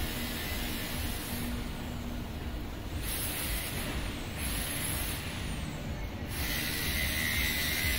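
Steady outdoor city ambience: an even rush of background noise with no distinct events.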